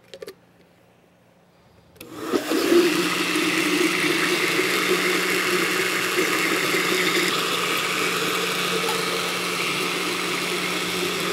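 Countertop blender switching on about two seconds in and then running steadily, blending crepe batter.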